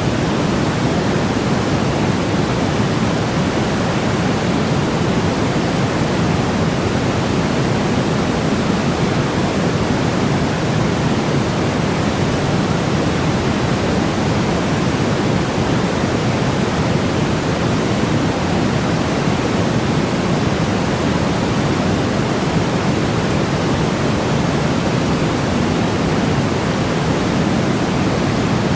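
Steady calming noise track, sold as white noise but deeper, with most of its energy low and the highs rolled off, like pink noise. It runs even and unchanging, with no rhythm or breaks.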